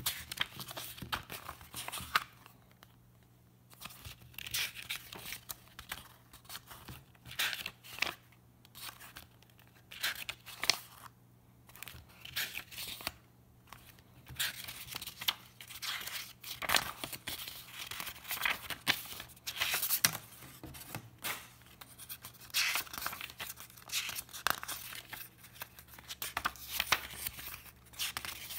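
Paper pages of a small booklet being turned and riffled by hand: irregular bursts of paper rustling and flicking, with short pauses between them.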